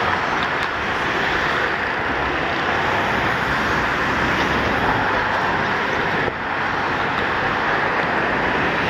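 Boeing 737-200's Pratt & Whitney JT8D turbofans in reverse thrust on the landing rollout: a loud, steady rushing jet noise.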